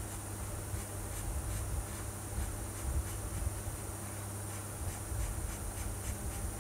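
Marker tip scratching on paper in short, irregular colouring strokes, a couple a second, over a steady low hum.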